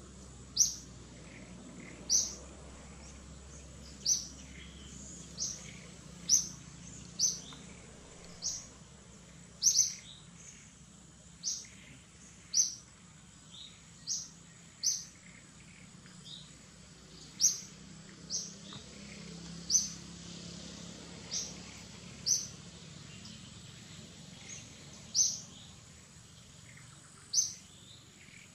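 A bird calling with short, sharp, high chirps, repeated roughly once a second at an uneven pace, over faint steady background noise.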